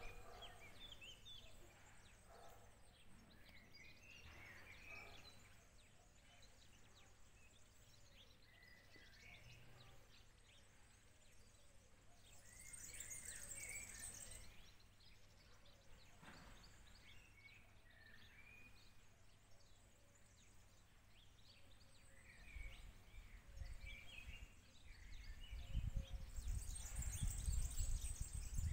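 Small birds chirping and twittering in a garden, with brief bursts of dense high twittering about halfway through and again near the end. A low rumble builds in the last several seconds.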